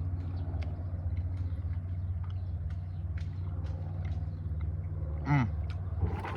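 Steady low hum of an idling car engine heard from inside the cabin, with scattered small clicks of someone chewing jerky and a short falling "mm" about five seconds in.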